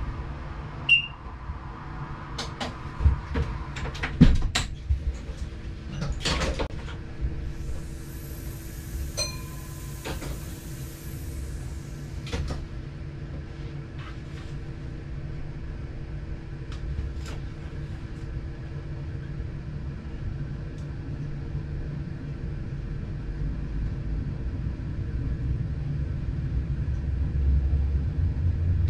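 Train cab sounds: a series of sharp clicks and knocks, then a hiss of about four seconds, over a low rumble that builds steadily louder toward the end as the train gathers speed.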